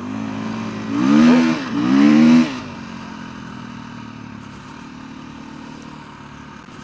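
Motorcycle engine revved hard twice in quick succession, the pitch rising and falling each time, then settling into steady, lower running.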